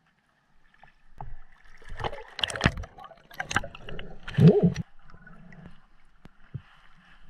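Water splashing and gurgling around a GoPro as a snorkeler moves from the lake surface to underwater. There is a string of irregular splashes, the loudest about four and a half seconds in, then a fainter, muffled underwater noise.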